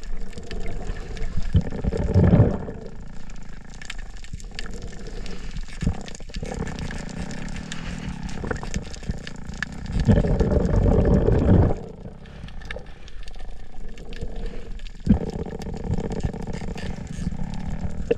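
Muffled sloshing and rumbling of seawater around a camera at or just under the surface, with a louder surge of water about ten seconds in that lasts nearly two seconds.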